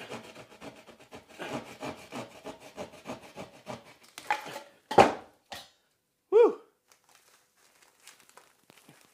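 Rhythmic scraping and rasping of a hand tool working into drywall for about four and a half seconds, then a sharp knock about five seconds in and a brief falling pitched sound a moment later.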